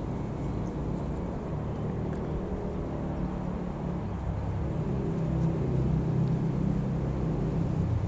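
Cessna 172M Skyhawk's four-cylinder Lycoming O-320 piston engine running at low power, a steady low drone that grows a little louder about five seconds in.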